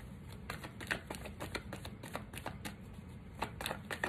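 Tarot deck being shuffled by hand: a quick, uneven run of short card clicks and flicks.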